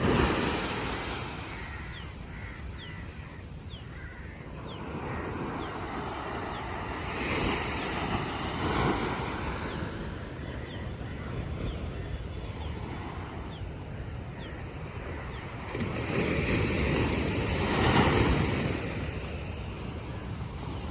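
Ocean surf rolling in and breaking on a beach: a steady wash that swells about seven seconds in and again from about sixteen seconds, loudest near eighteen seconds. Faint short high chirps come through now and then.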